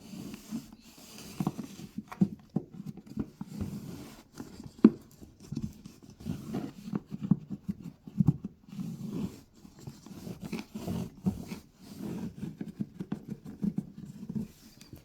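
Toothbrush scrubbing a plastic washing-machine detergent drawer: irregular short scraping strokes with occasional sharp knocks of plastic.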